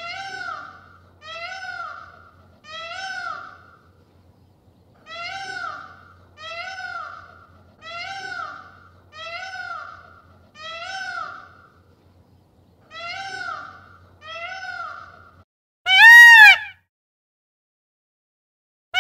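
Indian peafowl (peacock) calling: about ten short calls, each rising then falling in pitch, roughly one a second in three runs with short gaps, then one much louder call near the end.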